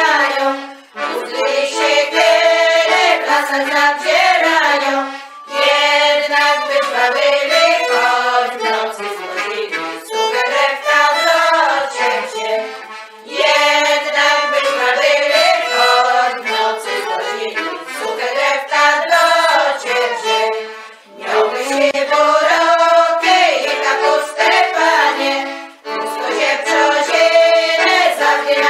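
A women's folk choir singing a Polish Christmas carol (kolęda), accompanied by violin and accordion. The melody comes in phrases with short breaks between them.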